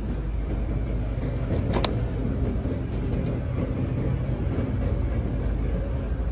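Shopping cart wheels rolling over a polished concrete store floor: a steady low rumble, with a short click about two seconds in.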